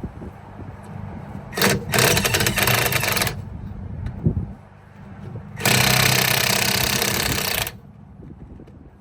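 Impact gun zipping trailer-wheel lug nuts loose in two bursts of about two seconds each, over a steady low hum.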